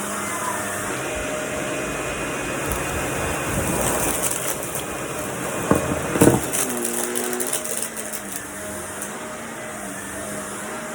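Vacuum cleaner running steadily, with a stretch of rattling and clicking about four to six seconds in and two loud knocks near the end of it.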